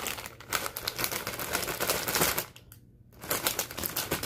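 Plastic candy bag crinkling as it is handled and shaken, a dense run of crackling clicks that stops for about half a second about two and a half seconds in and then starts again.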